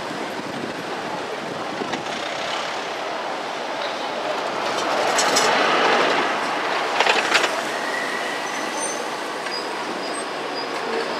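A city tram passing close by on street track. Its rolling noise swells as it goes past about five seconds in, with a few sharp clacks over the rails around then and again about seven seconds in, and a thin high wheel squeal as it moves away near the end.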